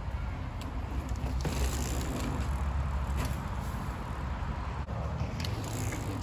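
Mountain bike riding on a dirt trail: tyres rolling over dirt and dry leaves, with a steady low rumble and scattered clicks and crackles.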